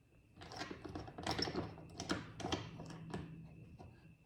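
A wooden drawer front being set down on scrap wood on the bench and clamped: a string of light clicks and knocks, about five in three seconds, dying away near the end.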